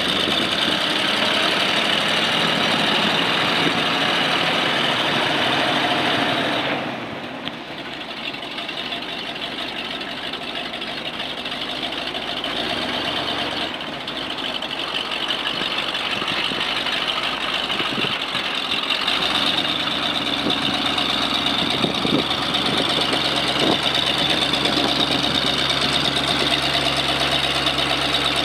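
1966 Chevrolet C60 grain truck's engine idling steadily, dropping somewhat in level for several seconds about a quarter of the way in before coming back up.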